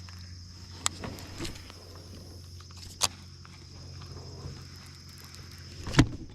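Steady high insect drone, broken by three sharp clicks or knocks about a second, three seconds and six seconds in, the last the loudest.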